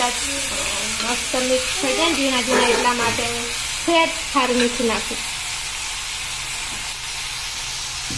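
Chopped tomatoes and green chillies sizzling in hot oil in a wok, a steady hiss, stirred with a metal ladle at the start. Indistinct voices are heard over it for about the first five seconds.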